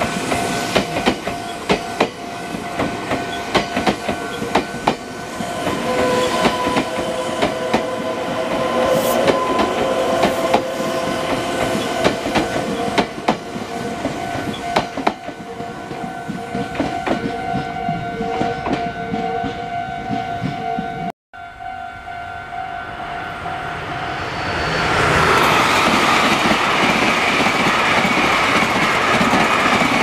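Electric commuter trains passing a level crossing: wheels clacking rapidly over rail joints with steady tones under the clatter, a brief break about two-thirds through, then a Meitetsu 2200-series express rushing past at speed with loud wind and wheel noise over the last few seconds.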